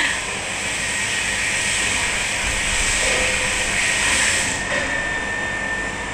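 Steady rushing hiss like blowing air, with a faint steady whistling tone coming in near the end.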